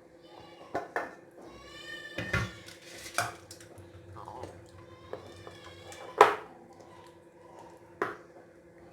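A spoon scraping and knocking against a pan while cooked drumstick masala is served into a bowl: several sharp clinks, the loudest about six seconds in, and two stretches of squeaky metal scraping.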